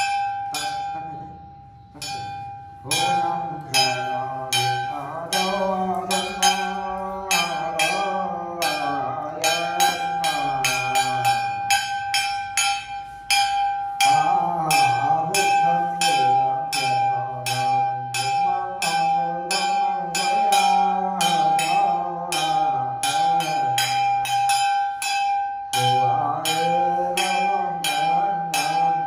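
A man chanting a ritual prayer in a voice that rises and falls, over a small bell struck or shaken in a steady rhythm of about three strokes a second, its ringing tone carrying between strokes. The chanting breaks off briefly twice, about two seconds in and about twelve seconds in, while the bell keeps going.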